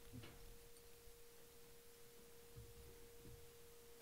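Near silence: room tone with a faint steady single-pitched tone.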